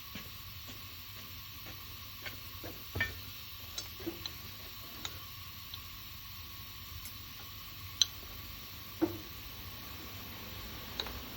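Scattered light clicks and taps of small metal parts and hand tools being handled during work on a car air-conditioning compressor, over a steady low hum. The two sharpest knocks come about eight and nine seconds in.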